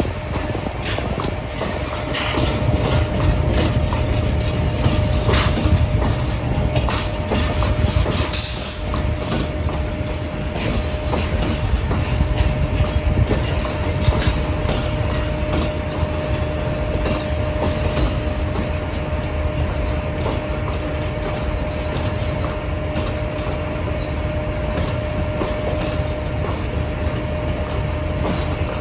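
A train moving slowly through a station: low rumble with wheels clicking over rail joints, and a steady tone that holds throughout.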